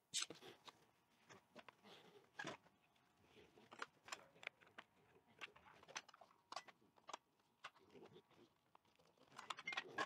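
Near silence, broken by scattered faint clicks and knocks as timber is measured with a tape measure and handled at a mitre saw.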